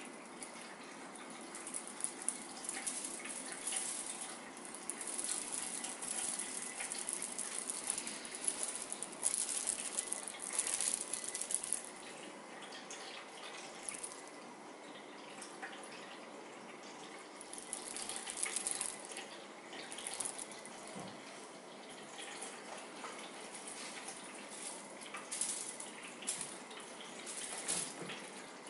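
Irregular rustling and crackling in uneven bursts that swell and fade, heaviest in the first half and again a little past the middle.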